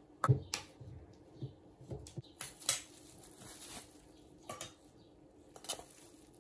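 A spoon clinking and tapping against dishes while condensed milk is spooned into a blender jar: several sharp taps, the loudest just after the start, and a brushing scrape around the middle. The blender is not running.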